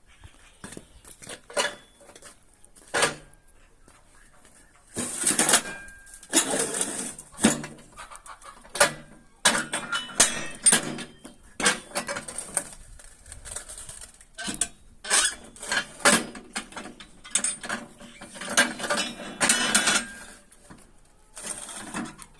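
Brick-making press being worked: irregular metal clanks and knocks with longer scraping stretches, with no steady motor hum.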